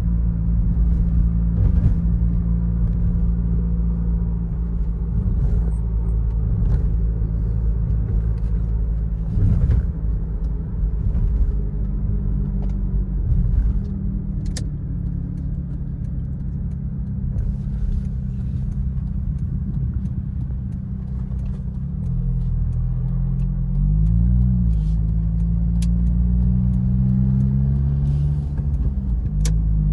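Car engine running and road rumble heard from inside the cabin while driving. About three-quarters of the way through, the engine note dips and climbs again, as in slowing and accelerating, with a few faint clicks scattered throughout.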